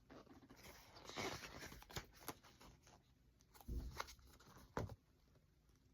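Faint paper handling of a book being leafed through: a few soft rustles and taps of pages turning, with near silence between them.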